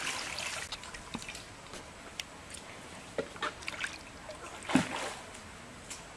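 Water poured from a clay bowl splashes into a steel plate of cut carp pieces, then hands washing the pieces make small splashes and knocks against the plate. There is a louder knock about five seconds in.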